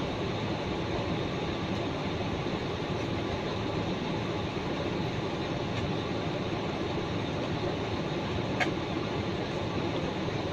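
1989 Chevrolet S10 Blazer engine running steadily with an exhaust leak, giving a constant rough rumble. A single sharp click about eight and a half seconds in.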